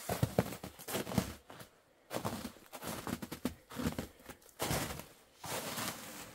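Irregular crunching and rustling noises in short bursts, the longest two near the end.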